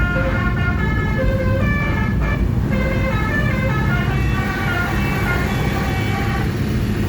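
Basuri (telolet) multi-trumpet vehicle horn playing a quick tune of short notes that step up and down in pitch, over a steady low rumble.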